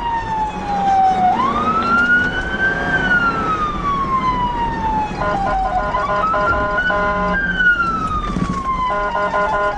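Police car electronic siren sounding a slow wail that falls, climbs and falls again, switching to a rapid pulsing warble about five seconds in and again near the end, over engine and road noise.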